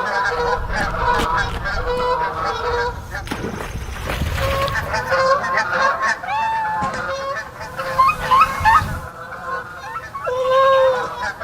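Geese honking, many short calls overlapping, over a low rumble that cuts off about nine seconds in.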